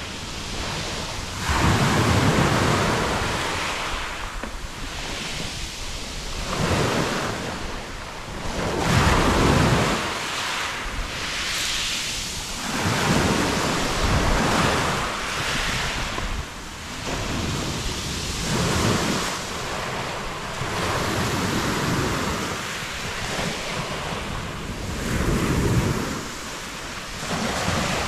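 Black Sea waves breaking and washing over a pebble beach, swelling and ebbing every two to three seconds, with wind gusting on the microphone.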